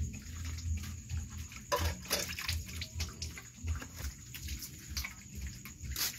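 Dog eating wet rice from a metal bowl: irregular wet chewing, lapping and smacking sounds, a few a second, with a louder smack about two seconds in.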